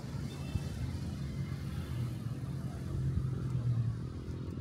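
A motor vehicle running nearby, heard as a steady low rumble.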